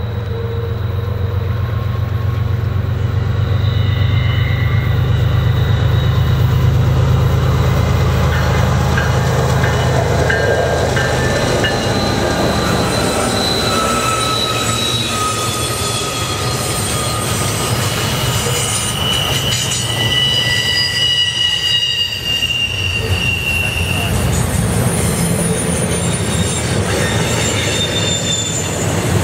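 Diesel freight locomotives passing with a deep engine rumble that is loudest in the first several seconds and then fades. Double-stack intermodal well cars follow, rolling by with their wheels squealing in several thin, high tones that drift slowly in pitch.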